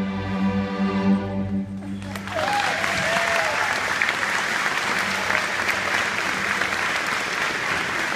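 A student string orchestra holds its final chord, which ends about two seconds in. The audience then breaks into steady applause, with a short wavering cheer early on.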